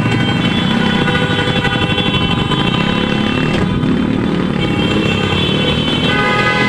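Motorcycle engines running in a motorcade, with several vehicle horns held at once over them; the horn tones change about halfway through and again near the end.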